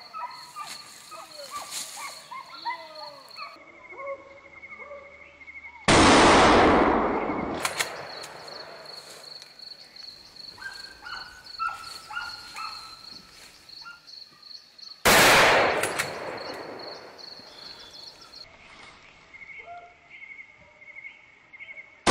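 Gunshots from a hunting gun, two of them about nine seconds apart, each echoing away through the woods for a couple of seconds, and a third right at the end. Birds chirp in the quieter stretches between the shots.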